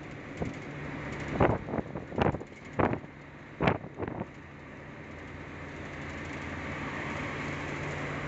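Steady engine and road noise heard from inside a vehicle cruising on a highway, with a low hum. About a second and a half in, a quick run of about six sharp knocks or rattles comes over two to three seconds, louder than the running noise.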